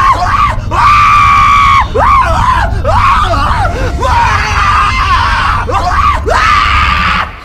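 Animatronic fortune teller prop's recorded scream played through its speaker: a string of loud screams rising and falling in pitch, with a few short breaks, cutting off suddenly near the end.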